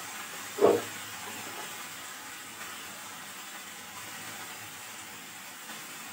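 Chicken and vegetables sizzling steadily in oil in a frying pan, with a single short thump less than a second in.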